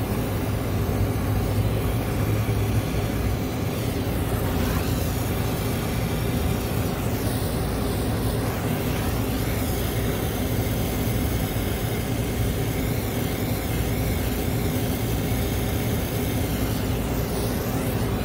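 Brazing torch flame burning with a steady rushing roar while the copper joints of a refrigeration filter drier are brazed.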